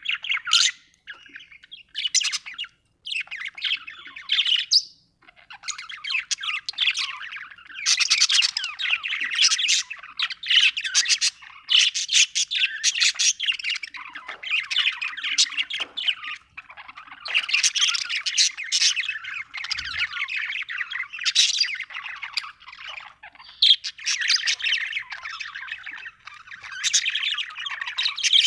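Budgerigars chirping in a dense, fast run of short high chirps, with a few brief pauses in the first five seconds.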